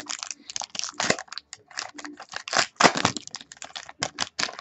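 Plastic wrapper of a pack of trading cards being torn open and crinkled by hand: a rapid, irregular run of crackles.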